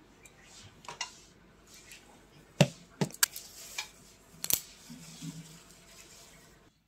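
Steel spoon clinking and tapping against a small steel plate of spices as salt is spooned in and mixed: a handful of sharp clicks, the loudest about two and a half seconds in.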